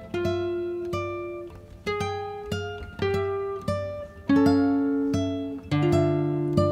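Background music: an acoustic guitar plucking notes and chords about twice a second, each note ringing out and fading.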